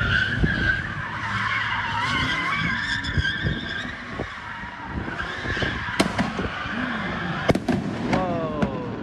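Car tires squealing in long, wavering screeches as cars skid through stunts, then several sharp firework bangs in the last few seconds, followed by a short falling whistle.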